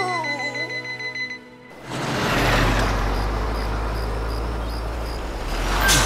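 Cartoon electronic security alarm ringing in steady tones, stopping after about a second and a half, then after a short gap a long, low rumbling noise that lasts several seconds.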